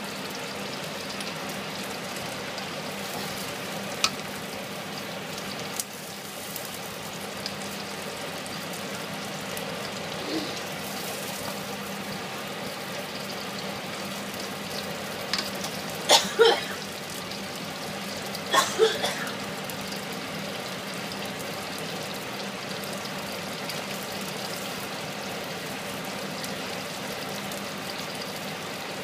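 Garlic prawns sizzling steadily in oil in a stainless-steel wok. A spatula knocks and scrapes against the wok a few times, loudest in two short clusters about halfway through.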